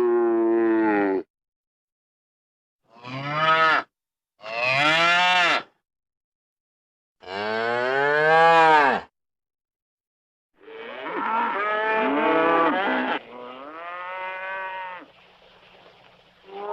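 Cows mooing: a string of separate moos, each rising and then falling in pitch, split by short silent gaps. The last, longer moos near the end carry some background noise.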